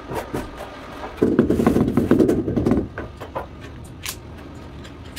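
Large porcelain floor tile worked into its adhesive bed with a suction-cup lifter: a rough grinding scrape lasting about a second and a half. Light plastic clicks follow as leveling clips are fitted at the tile's edge, with a sharper click near the end.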